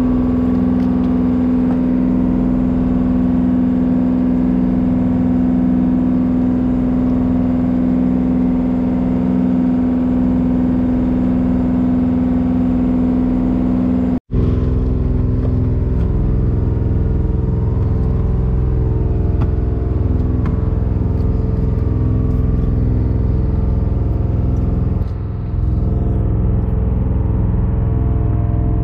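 Fishing boat's engine running with a steady drone. After a brief break about halfway through, it goes on with a deeper, heavier tone.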